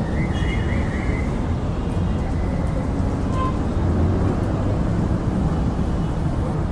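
Street traffic ambience: a steady low rumble of vehicle and road noise, with a few faint high chirps at the start.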